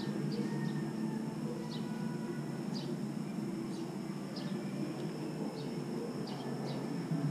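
Outdoor ambience: a steady high insect drone with short, falling high chirps repeating every half second or so, over a steady low rumble.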